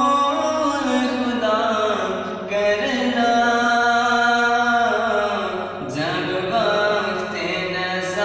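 A man's solo voice singing an Urdu naat unaccompanied, drawing out long notes with bending, ornamented turns, and a brief pause for breath near the end.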